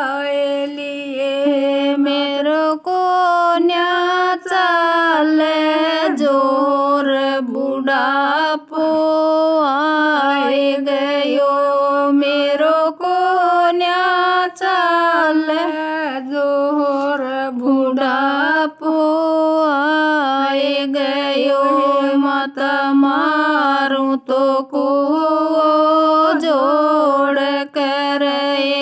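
A woman singing a Rajasthani folk bhajan in a chant-like melody, one voice carrying phrase after phrase with short breaths between them.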